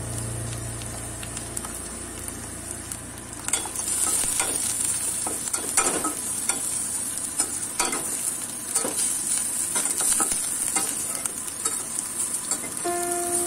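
Spice paste and ground spices frying in hot oil in a stainless-steel pot, sizzling, while a spatula stirs and scrapes the pot bottom in repeated short strokes. The sizzle grows louder about three and a half seconds in.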